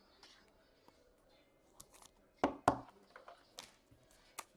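Trading cards and packs being handled on a table: light ticks and rustles, with two sharp taps about two and a half seconds in.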